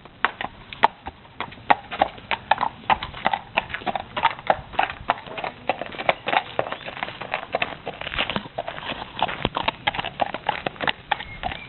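Horse's hooves clip-clopping: a steady run of sharp hoof strikes, several a second.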